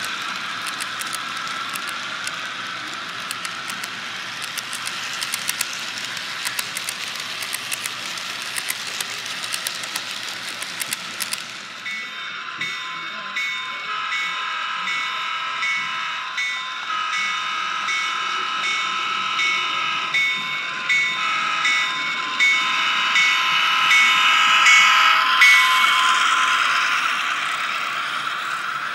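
HO scale model freight train rolling past close by, its wheels clicking rapidly over the rail joints. Then a sound-equipped model diesel locomotive blows its multi-note horn in four blasts, long, long, short, long (the grade-crossing signal), while the train rumbles nearer.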